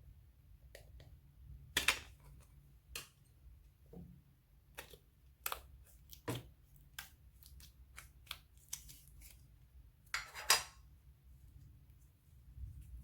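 Slime being mixed and squeezed by hand, giving irregular sticky clicks and pops, loudest about two seconds in and again near ten seconds.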